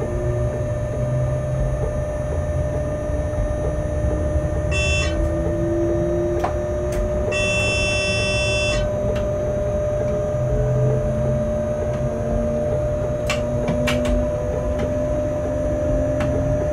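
Cab of an electric locomotive running at speed: a low running rumble and a steady hum, with motor whine slowly rising in pitch. Two short electronic beeps sound about five and eight seconds in, and a few sharp clicks come near the end.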